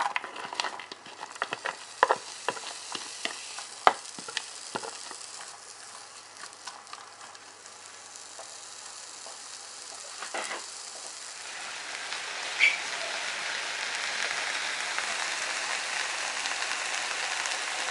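Diced onion frying in hot oil in a non-stick frying pan, with a silicone spatula tapping and scraping as the onion is pushed in and stirred during the first few seconds. From about 11 seconds in, with sliced champignon mushrooms added over the onion, the sizzling turns louder and steadier.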